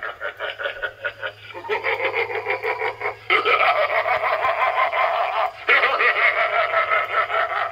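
Spirit Halloween Young Crouchy clown animatronic's recorded voice playing through its built-in speaker. It laughs in quick short bursts, then in two longer, louder stretches about three and six seconds in.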